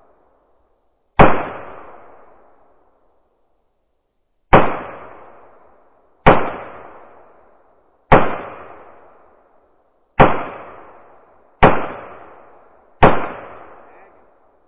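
AR-15-style rifle firing seven slow, unevenly spaced single shots, each followed by a long echo that fades away.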